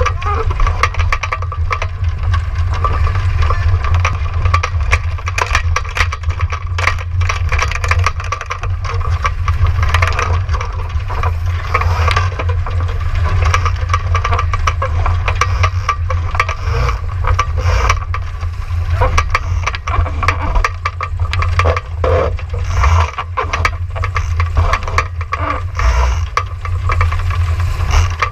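Wind buffeting the onboard camera's microphone on a Laser Vago racing dinghy sailing hard in rough, gusty conditions, a steady low rumble mixed with water rushing along the hull. Constant rattling and knocking from the boat's fittings and rigging as it bounces through the chop.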